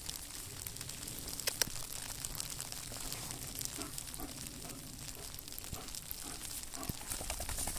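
Rustling and crackling close to the microphone, with scattered small clicks, as wolfdogs move around on frosty grass.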